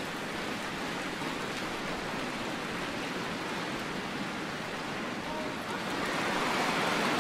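Steady hubbub of a large arena crowd, swelling slightly near the end.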